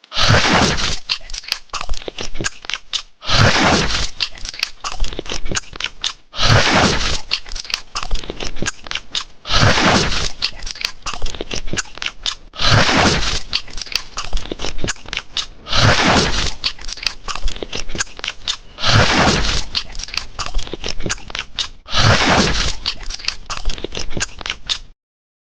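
Loud, crunchy chewing and biting, an eating sound that repeats as a loop about every three seconds and cuts off suddenly near the end.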